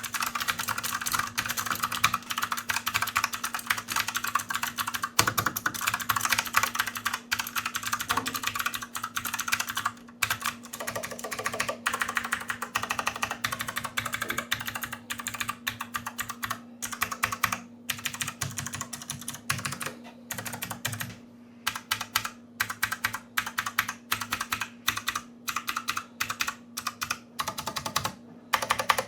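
Typing on a retro typewriter-style mechanical keyboard: a fast, continuous run of key clicks that thins out about halfway through into separate keystrokes and short bursts with brief pauses between them.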